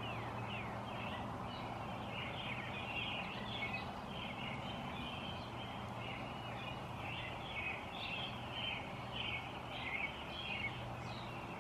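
Songbirds singing in the pre-dawn dark: a steady run of quick, irregular chirps and short down-slurred notes, over a faint low hum.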